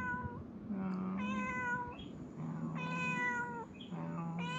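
Tabby stray cat meowing over and over while being stroked, a run of short meows about one a second.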